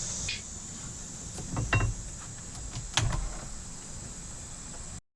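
A few scattered knocks and clunks over a steady background hiss, the loudest around the middle, then the sound cuts off abruptly near the end.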